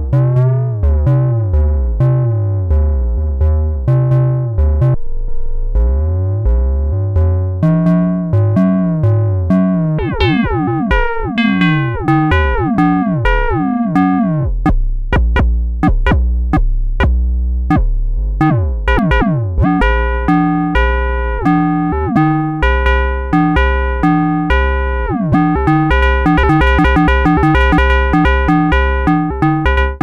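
Behringer System 100 modular analog synthesizer playing an FM bass line: a steady run of short, decaying notes whose overtones bend and glide as the frequency modulation is changed. The notes come faster near the end.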